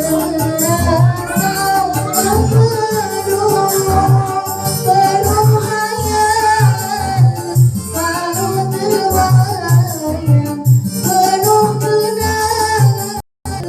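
Singing over backing music with a steady bass beat; the sound cuts out for a moment near the end.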